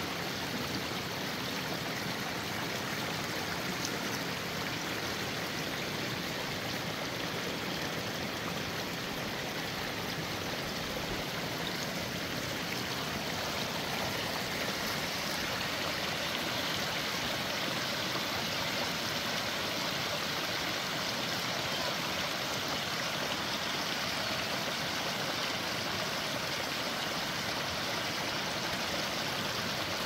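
Small woodland stream babbling steadily as it spills in little cascades over rocks and leaf litter.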